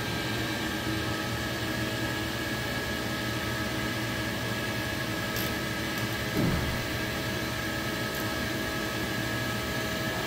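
CNC turning lathe running its program: a steady machine hum and whine from the spinning chuck and axis drives as the turning tool cuts corner radii on a metal workpiece. A brief falling whine sounds about six seconds in.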